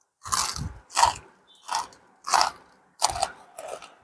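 Crunchy murukku being chewed close to a clip-on microphone: about six crunches, roughly one every two-thirds of a second.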